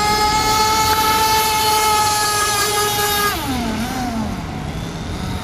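Radio-controlled speed boat's motor whining steadily at high speed, then dropping sharply in pitch and wavering downward about three seconds in as the throttle comes off and the boat slows.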